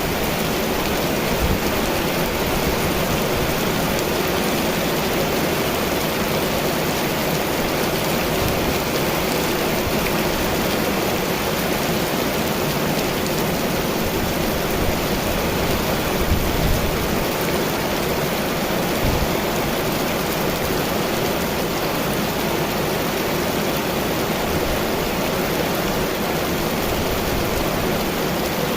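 Heavy rain pouring steadily, an even hiss of water on surfaces, with a few brief low thumps about halfway through.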